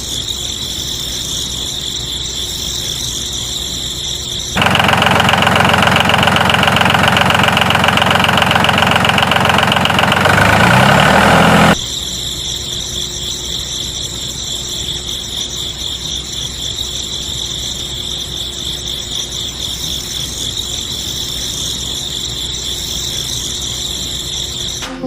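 Small DC electric motor of a homemade model machine running with a steady high whine. From about five seconds in, a louder, buzzier motor sound takes over for about seven seconds; its pitch drops just before it cuts off suddenly and the steady whine returns.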